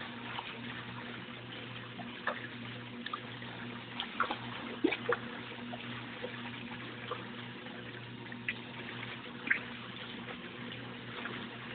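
Arno Lavete washing machine during its first rinse: water trickling and splashing into the tub, with scattered drips, over a steady low hum.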